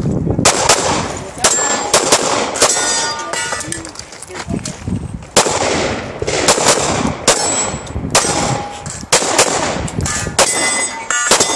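Handgun shots fired in quick strings with short pauses between, during a timed USPSA stage run; some hits leave steel targets ringing with a short metallic clang.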